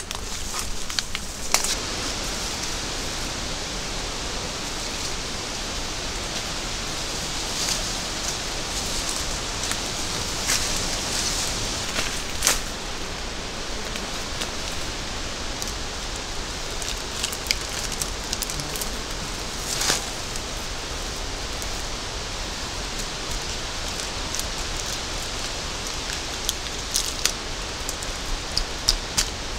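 A steady outdoor hiss of leaves and vegetation, with scattered snaps and rustles of someone moving through dense undergrowth. Near the end comes a quick run of clicks as hands work at the bark of a birch trunk.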